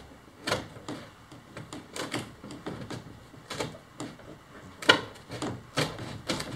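Irregular clicks and sharp cracks of a hand tool trimming along the edge of a cured fiberglass kayak shell, with a few louder snaps, the loudest about five seconds in.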